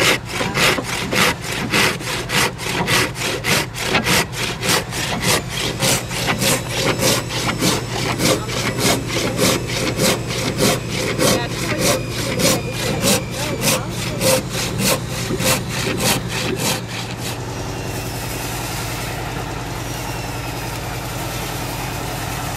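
Handsaw cutting through a thick wooden boat-frame timber in quick, even back-and-forth strokes, about three a second. The sawing stops about three-quarters of the way through, leaving a steady low drone.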